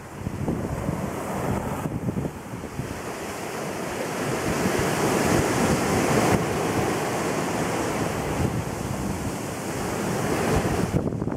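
Ocean surf breaking and washing up a sand beach, a steady rushing wash that swells louder about halfway through, with wind buffeting the microphone.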